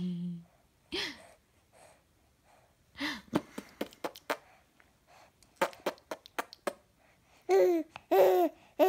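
A baby cooing, then giggling in short high squeals near the end. In between, a run of quick clicks and rattles from a handheld toy.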